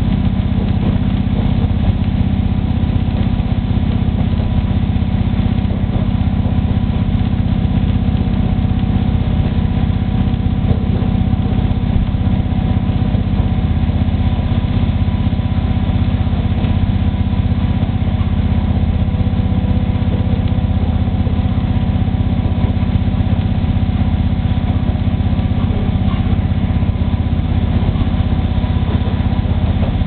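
Steady low drone of a diesel railcar under way, heard from inside the carriage: the engine and the running of the train on the rails, even and unbroken, with a few faint steady tones above it.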